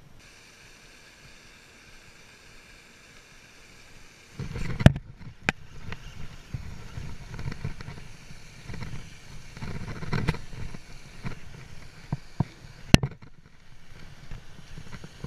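Wind rumbling on a GoPro's microphone together with rustling handling noise, setting in about four seconds in, broken by a few sharp clicks.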